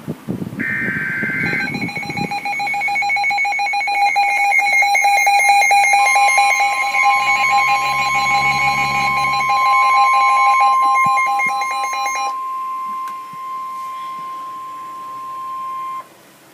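Emergency Alert System activation. It opens with a short burst of SAME header data, then a loud electronic attention tone. About six seconds in, a steady single-pitch weather-radio warning tone joins it. The attention tone cuts off at about twelve seconds and the warning tone continues alone until it stops near the end.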